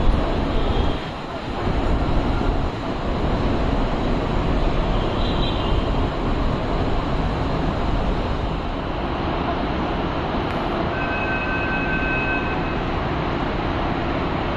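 Pune Metro train running at an elevated station platform: a steady rail rumble. A short high beep comes about five seconds in, and a held two-pitch tone lasts about two seconds near eleven seconds in.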